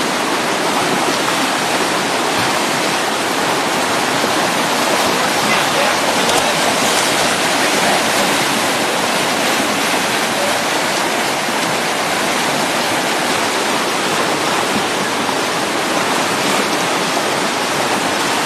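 Steady rush of whitewater pouring through a river rapid, an even, unbroken roar of moving water.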